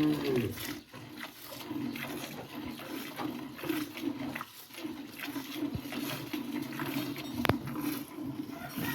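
A cow's low moo trails off in the first moment, then a steady low rumbling hum with scattered soft knocks and one sharp click about seven and a half seconds in.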